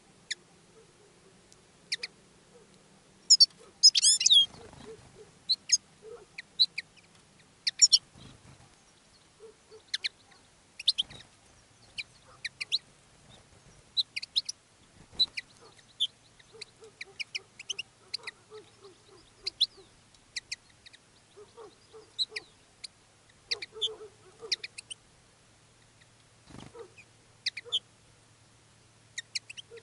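Caged decoy European goldfinches and linnets calling: short, high chirps scattered throughout, with a louder burst of twittering about four seconds in.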